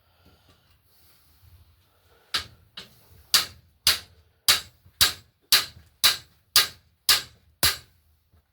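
A hammer struck eleven times in a steady rhythm, about two blows a second, the first two lighter than the rest.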